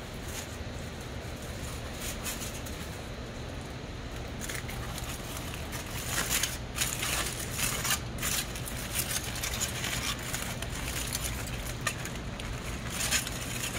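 Aluminium foil crinkling and crackling as gloved hands unwrap it, in irregular bursts starting about four and a half seconds in, over a steady low hum.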